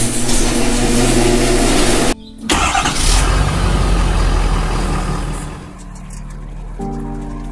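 Pickup truck engine starting and revving hard, cut off suddenly about two seconds in, then running with a deep rumble that fades away. Music comes back in near the end.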